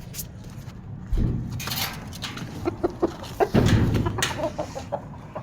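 Aseel chickens clucking in a run of short notes. Two heavy low thuds come about a second in and again about three and a half seconds in.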